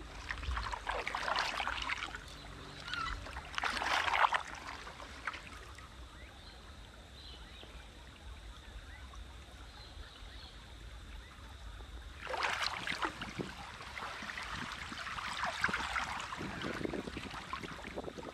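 Canoe paddle strokes: the blade dipping and pulling through river water with splashing and dripping. The strokes come in two spells, in the first few seconds and again from about twelve seconds in, with a quiet glide between.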